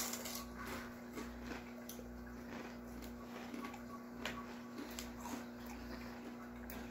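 Faint crunching of crinkle-cut potato chips being chewed, scattered crisp crunches spread through, over a steady low hum.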